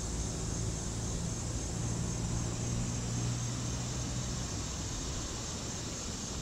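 Amtrak Siemens ACS-64 electric locomotive and its passenger train approaching from a distance: a steady rushing rumble with a low hum that fades out about four and a half seconds in.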